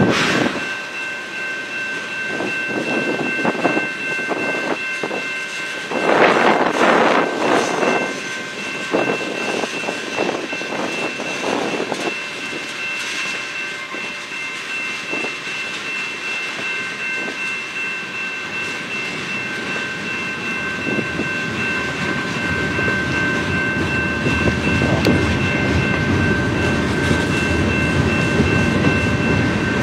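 Canadian National mixed freight train's cars rolling past, their wheels clattering on the rails, with a steady high tone above the noise. A louder surge comes about six seconds in, and the rumble grows heavier over the last several seconds.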